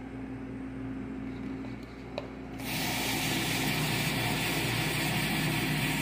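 Hot water running from a commercial coffee brewer's hot-water faucet into a plastic container of grated bar soap, a steady hiss that starts about two and a half seconds in. Before it there is only a low steady machine hum and a light knock.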